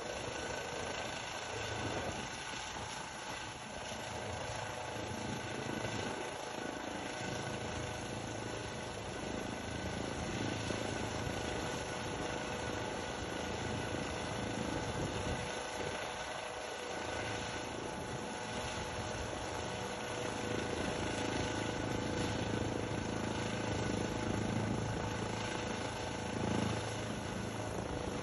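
Helicopter running steadily, its turbine whine and rotor thrum heard throughout and swelling slightly near the end.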